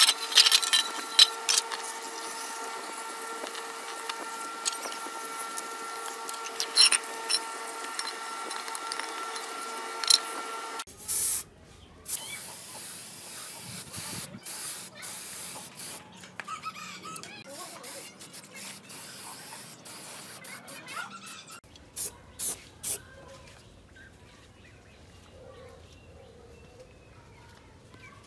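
Garden hose water spraying and splashing over aluminium generator engine casings as they are rinsed, with scattered clicks. This cuts off suddenly and gives way to an aerosol spray-paint can hissing in short bursts over the engine block, three of them loud and close together later on.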